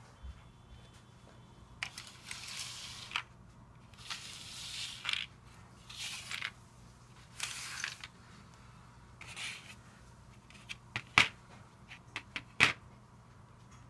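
Lego pieces being slid and gathered across a tabletop in several short scraping rustles, then a few sharp plastic clicks near the end as bricks are pressed together onto a grey plate.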